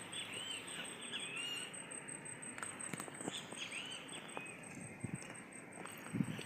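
Small birds chirping repeatedly in short, quick calls over faint outdoor background noise, with a steady thin high-pitched tone; a low rumble starts near the end.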